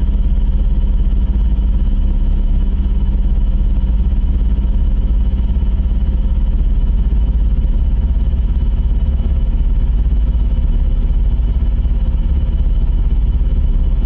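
Loud, steady synthesizer drone, deep and unchanging, with faint held tones above it: the background bed of a mock Emergency Alert System alarm.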